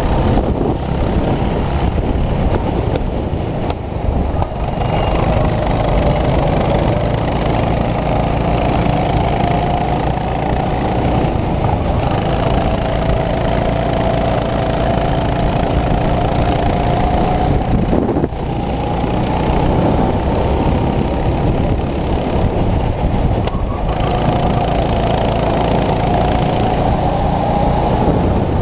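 Racing go-kart engine heard from the kart itself at racing speed, its pitch climbing steadily along the straights and dropping off suddenly when the driver lifts for the corners, three times.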